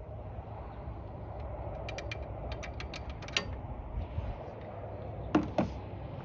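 Half-inch drive ratchet clicking in a quick run of about ten clicks as it is worked on the serpentine belt tensioner, followed near the end by two sharp metallic knocks close together, over a steady low rumble.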